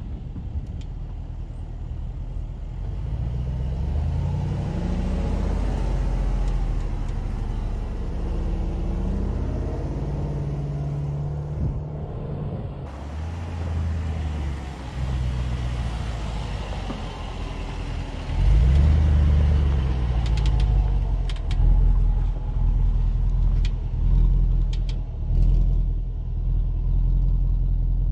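Range Rover Sport's supercharged V8 engine and exhaust: the pitch climbs in steps as it accelerates away, then from about two-thirds of the way in it gets louder with pulsing revs as the throttle is worked to push the SUV up through soft sand.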